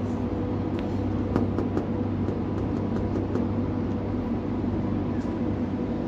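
Steady mechanical hum with a low drone and faint steady tones, like shop equipment such as pumps or air conditioning running. A few light clicks come in the first couple of seconds.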